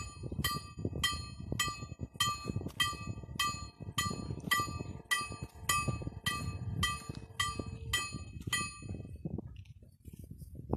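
Level-crossing warning bell (KLD-4013 acoustic signal) striking with a ringing metallic tone about twice a second as the half-barriers lower. It falls silent about nine seconds in, as the barriers come down.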